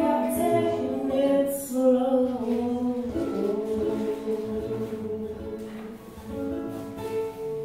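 A woman singing to her own strummed ukulele, the melody settling into long held notes that grow quieter as the song draws to its close.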